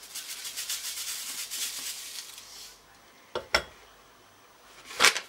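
Granulated sugar pouring from a glass into a paper bag, a grainy hiss for about two and a half seconds as excess sugar is tipped back out. Then a couple of knocks as the glass is set down on a kitchen scale, and a louder knock near the end.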